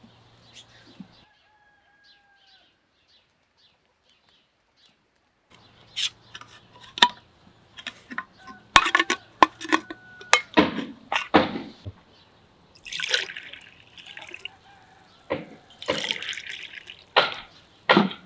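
Metal lid of a glass preserving jar pried off with a hand lid opener: sharp metal clicks, knocks and scrapes on the jar, starting about six seconds in. From about halfway, fruit compote is poured from the jar into drinking glasses in three pours.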